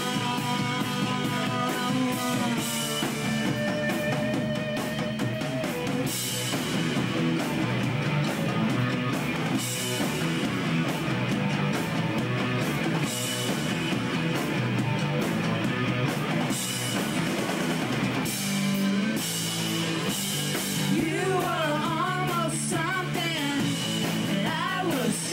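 Live rock band playing: electric guitar through an amp over a drum kit, with a voice singing. There are held guitar notes in the first few seconds and singing near the end.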